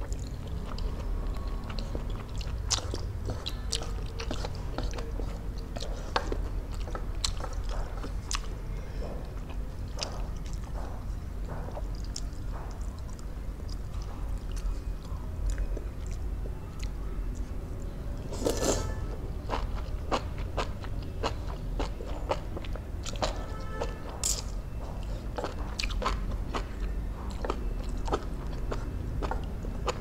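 Close-miked eating of Korean instant noodles: wet slurps, lip smacks and chewing, in many short sharp sounds, with two louder slurps about two-thirds of the way through, over a steady low hum.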